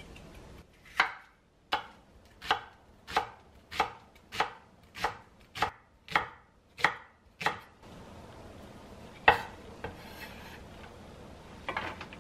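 Ceramic kitchen knife slicing green onion on a wooden cutting board, with about eleven even knife-on-board strokes at a steady pace of roughly one and a half a second. After a pause comes one louder knock, and near the end a few quick taps.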